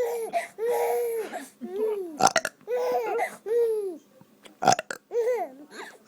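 A man making short fake burps, twice, about two seconds and four and a half seconds in. Each comes amid a baby's repeated bursts of laughter, high squealing laughs that rise and fall in pitch.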